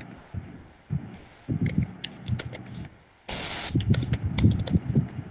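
Computer keyboard being typed on: irregular key clicks with dull low thumps, and a brief burst of hiss a little after three seconds in.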